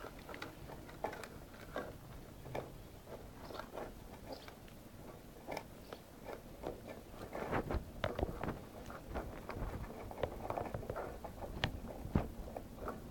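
Five-week-old Irish setter puppies eating together from a bowl: a run of irregular chewing and small clicking sounds, busier in the second half.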